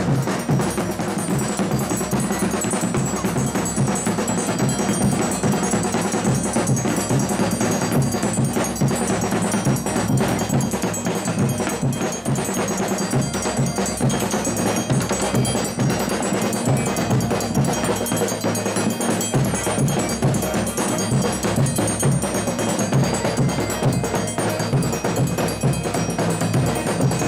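Folia de Reis band playing a chula without singing: drums struck with sticks and other percussion keeping a fast, steady beat.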